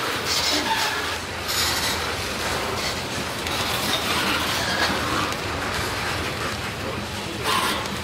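A freight train of tank cars rolling past, its steel wheels running on the rails with steady noise and a few brief high-pitched surges.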